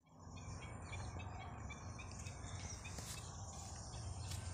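Birds chirping and insects over a steady low rumble outdoors, with a couple of sharp strikes of a hand hoe digging into soil about three and four seconds in.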